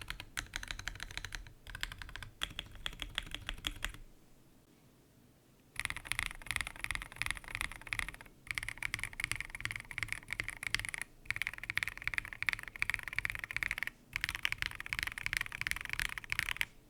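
Typing on an Ajazz First Blood B67 mechanical keyboard with Kailh linear switches in an acrylic case: fast runs of keystroke clicks, with a pause of about two seconds after the first four seconds and a few short breaks later on.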